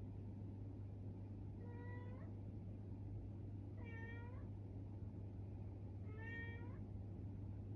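Domestic cat meowing three times, each meow about half a second long and roughly two seconds apart, over a steady low hum.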